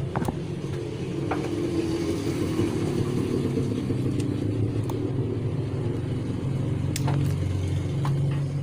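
A steady low mechanical rumble, like a motor vehicle running nearby, with a few light clicks as wires and a small amplifier board are handled.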